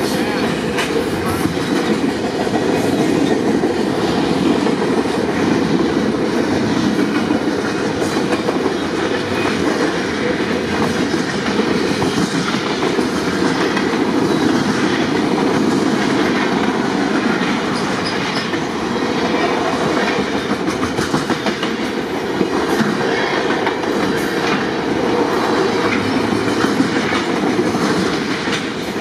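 Freight train of centerbeam flatcars loaded with lumber rolling steadily past close by, with frequent wheel clicks throughout.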